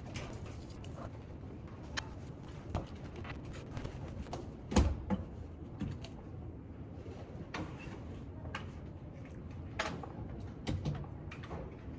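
Scattered light knocks and taps of objects being handled on a wooden desk, the loudest about five seconds in, over a steady low room hum.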